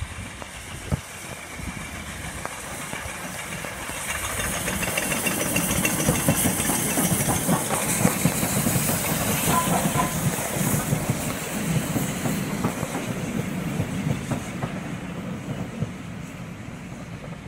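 Steam train headed by the LNER B1 4-6-0 Mayflower and the A3 4-6-2 Flying Scotsman passing close by, with steam hissing and wheels clattering over the rail joints. The sound builds as the locomotives go by, then eases as the coaches roll past.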